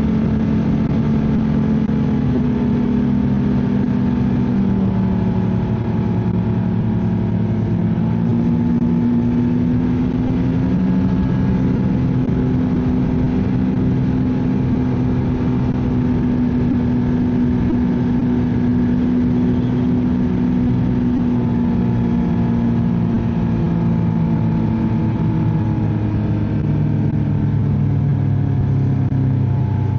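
Ski-Doo snowmobile engine running steadily at trail speed, its pitch drifting gently up and down with the throttle.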